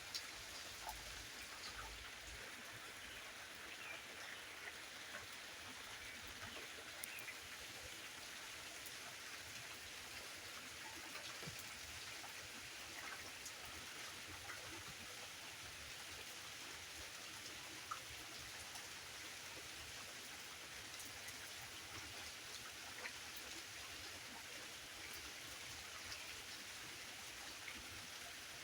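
Steady rain falling, an even hiss with many small drop ticks and taps scattered through it.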